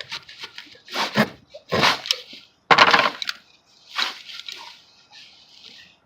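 Handling noise from the tire plug repair: about four short, noisy scraping and rustling bursts in the first four seconds, then fainter scuffs.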